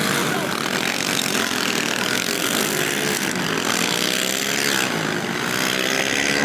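Pit bike engines revving on a dirt track, several at once, their pitch rising and falling with the throttle.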